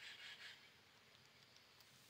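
Near silence, with a faint, short rustle in the first half second.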